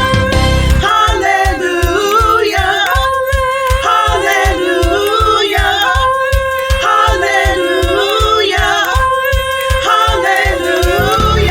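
Voices singing a gospel song with held notes, over a steady low beat of about four pulses a second.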